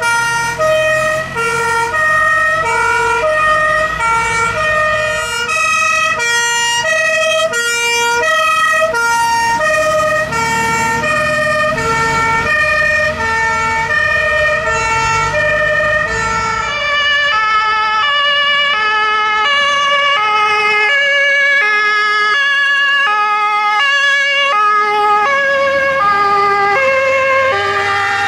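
Two-tone sirens (Martinshorn) of several German fire engines sounding together, each alternating between a high and a low note, the patterns overlapping. A Mercedes-Benz fire truck's diesel engine rumbles as it passes close, fading out about two-thirds of the way in while the sirens carry on.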